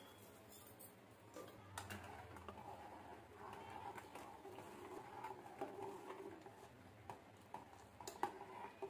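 Long metal spoon stirring milk in a metal pot, with light, irregular clicks and scrapes of the spoon against the pot's sides and bottom.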